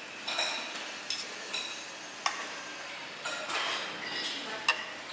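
Metal utensils clinking against dishes at a meal: about six short, ringing clinks at irregular intervals.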